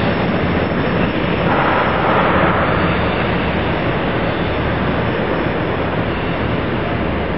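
Steady rumble and hiss of a diesel train running at the station, with a low hum underneath and a brighter rush from about one and a half to three seconds in.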